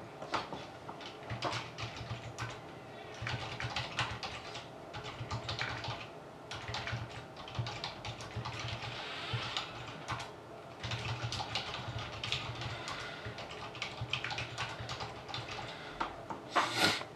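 Typing on a computer keyboard: irregular runs of key clicks, entering a list of team names, with a louder burst near the end.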